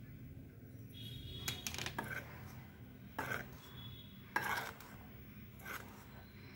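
A metal spoon stirring and scraping a dry powder mix in a glass bowl, with several light clinks of the spoon against the glass.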